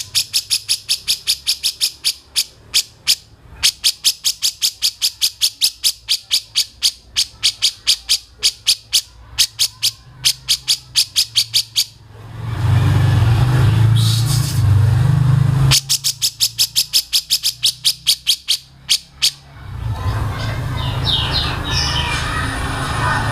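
A bird call of sharp, rapid ticks, about five a second, in two long runs separated by a few seconds of low humming noise. A few brief higher chirps come near the end.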